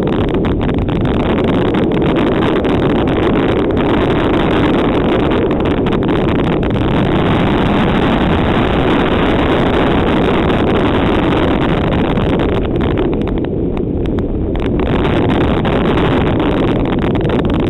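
Steady rushing roar of a fast toboggan run: wind buffeting the camera microphone together with the wooden sledge's runners scraping over packed snow. It eases briefly about three-quarters of the way through.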